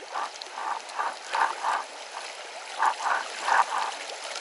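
Choppy water of a fast, shallow river riffle rushing and splashing around an inflatable packraft, with short splashes coming in quick pairs over a steady hiss of water.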